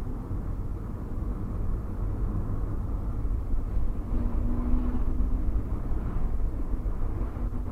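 Steady low rumbling noise, like outdoor ambience or a vehicle heard from inside, with a faint hum about halfway through.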